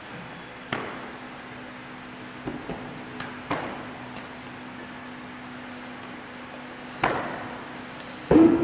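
Sharp, separate slaps and stamps of a Bajiquan Xiao Jia form, a few seconds apart, with the loudest near the end.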